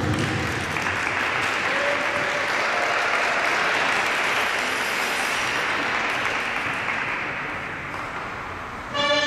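Audience applauding in an ice rink, fading away slowly; music starts up just before the end.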